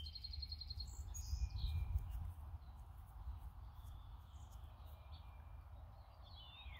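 Songbirds chirping faintly: a short rapid trill at the start, a brief call about a second and a half in, and a falling call near the end, over a low steady rumble.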